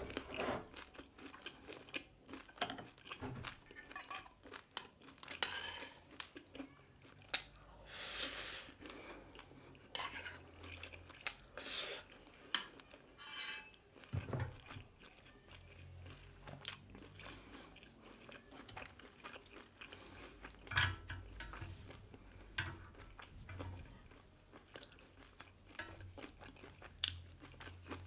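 Close-up chewing and biting of grilled pork sekuwa and rice: wet mouth clicks and crunching, with a few longer noisy chews in between.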